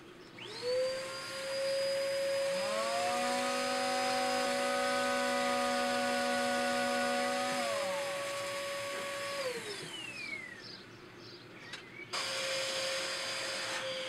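Electric palm sander switched on and running with a steady whine as it sands a chamfer onto a wooden corner against a clamped guide; a second, lower hum joins for several seconds in the middle. About nine and a half seconds in it winds down with a falling whine, and it is switched on again near the end.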